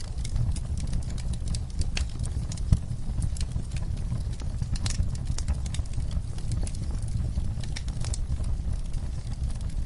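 Wood fire burning in a fireplace: a steady low rumble of the flames with frequent irregular sharp crackles and pops, a louder pop a little under three seconds in.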